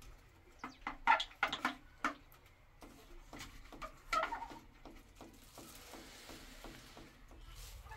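Small clicks and scrapes of a screwdriver and the plastic housing of an oval bulkhead light being screwed to a tiled wall, in a quick run for the first couple of seconds and again around the middle.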